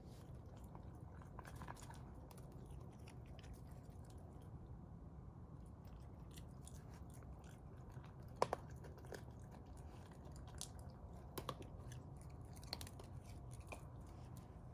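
A raccoon chewing, with small irregular clicks and crunches and a few sharper clicks in the second half.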